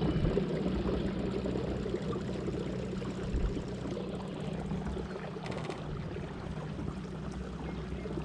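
Electric trolling motor driving a canoe, a steady low hum under the rush and trickle of water along the hull.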